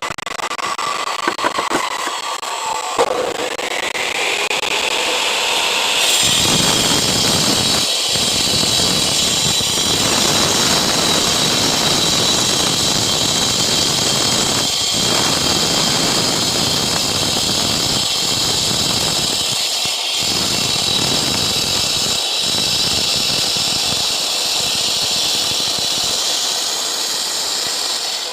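Power disc cutter spinning up with a rising whine, then cutting into a concrete paving block with a loud, steady grinding noise over a high whine, easing off briefly a few times as the blade works through the block.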